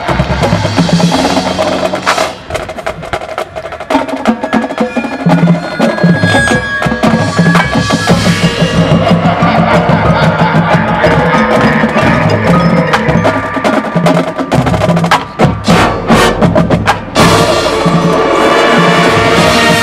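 High school marching band playing its field show: mallet percussion and drums prominent over held wind chords, with a run of sharp drum hits about three-quarters of the way through.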